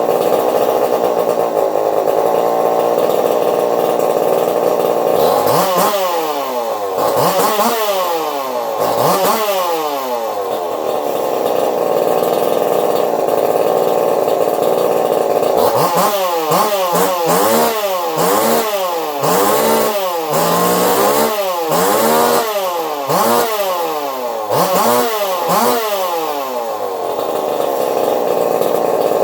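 Custom-built two-stroke chainsaw engine, with crank and piston swapped, running steadily at high speed. It is then revved up and down several times, holds steady for a few seconds, and is revved up and down again about once a second through the second half.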